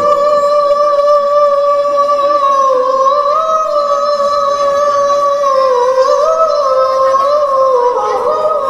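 A child qari's high, melodious voice holding one long note of Qur'an recitation (tilawah), with small ornamental turns in pitch about three seconds in and again about six seconds in.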